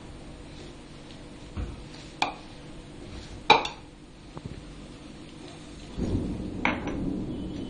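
Hand mixing wheat flour and water into dough in a bowl, with several sharp knocks against the bowl, the loudest about three and a half seconds in, and a low rumble near the end.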